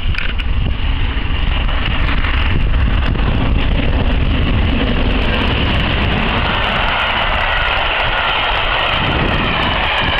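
GWR Castle-class steam locomotive passing close at speed with its coaches: a loud, steady rush of the engine working and wheels running on the rails.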